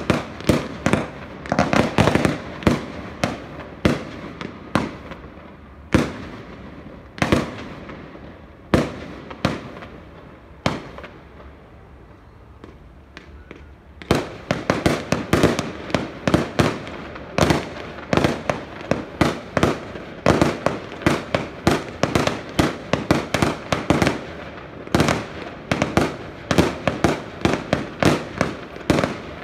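Aerial fireworks shells going off in a rapid series of sharp bangs. The bangs thin out to a few widely spaced ones with a brief lull about twelve seconds in, then come thick and fast again from about fourteen seconds on.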